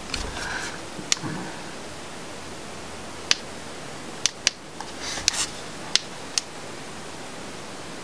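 A run of short, sharp plastic clicks, about eight spread irregularly, from the power buttons of two small Aomais Bluetooth speakers being pressed and the speakers handled, over a steady low hiss; the speakers give no power-on sound, as if their batteries are flat.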